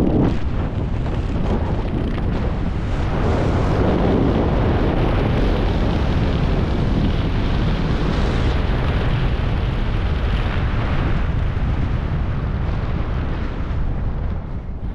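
Wind rushing over a helmet-mounted camera's microphone during a parachute canopy descent. It is a loud, steady roar that eases off near the end as the skydiver comes down low for landing.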